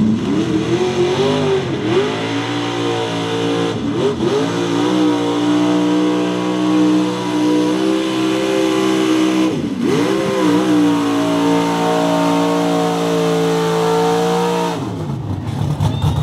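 Lifted Chevrolet mega truck's engine at full throttle pulling a weighted sled, its revs climbing and dipping briefly three times before holding high. The engine note drops sharply near the end as the throttle is let off.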